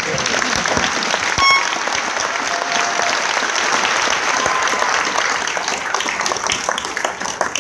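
Audience applauding, a dense patter of many hands clapping that starts at once and eases off near the end. A brief high pitched call rises above it about a second and a half in.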